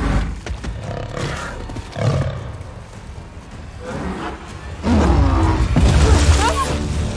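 Film soundtrack: tense score, then about five seconds in a loud animal-like roar and heavy crash as a robot gorilla bursts out through a waterfall, water splashing.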